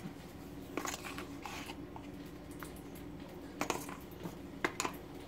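A few faint clicks and taps as a baking powder tin and a measuring spoon are handled, over a low steady hum.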